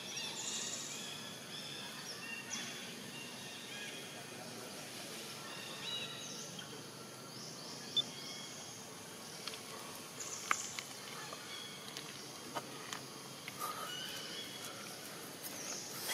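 Outdoor ambience: birds chirping here and there in short high calls over a steady background hiss, with a few sharp ticks, the loudest about halfway through.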